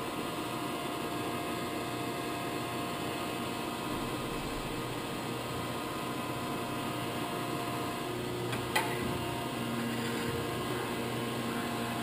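A 1977 Gallmeyer & Livingston Grand Rapids Model 560 surface grinder running, its spindle and hydraulic pump motors giving a steady hum. A single sharp click comes about nine seconds in.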